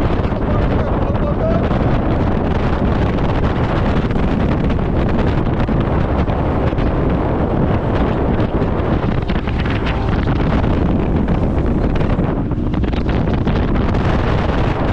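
Steady wind rushing over the microphone of a bass boat running at speed, with the boat's motor and water noise underneath.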